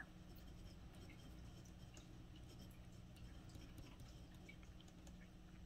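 Near silence: the faint scratch and tick of a glass dip pen tip writing on a paper swatch card, over a low steady hum.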